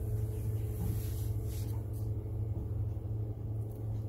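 Steady, unchanging low machinery hum from the yacht's onboard generator set and its compartment blower.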